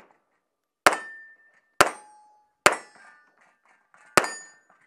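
Four pistol shots about a second apart, with a short metallic ring after some of them from steel targets being hit.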